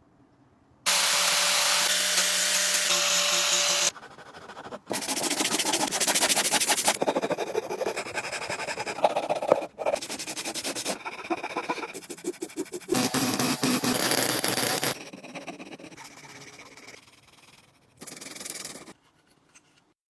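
Handmade wooden toy train rolling along its track in several runs of rattling, rubbing noise that start and stop abruptly, the longest with a fast regular clicking.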